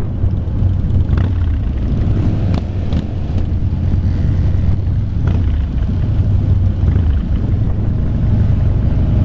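Motorcycle engine running at slow parade pace, a steady low rumble heard from aboard a cruiser motorcycle, with a few brief clicks.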